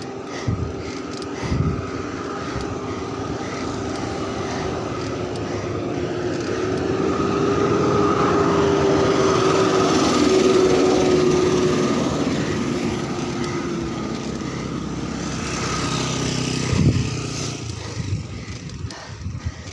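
A steady engine drone of near-constant pitch grows louder, peaks about ten seconds in, then fades away. Underneath it runs a haze of wind and rolling noise from the moving bicycle, with a few short knocks near the start and near the end.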